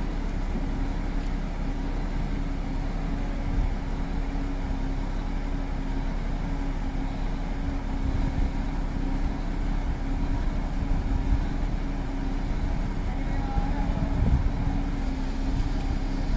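Mitsubishi Fuso Super Great flatbed truck's diesel engine idling: a steady low rumble with a constant hum.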